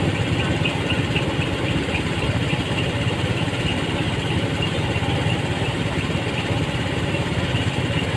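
Rice combine harvester's diesel engine running steadily at an even, unchanging pitch.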